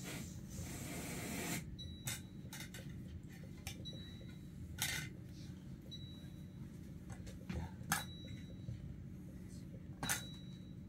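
Scattered sharp clicks and light clinks, a few with a brief high ring, over a steady low hum, with a short hiss at the start.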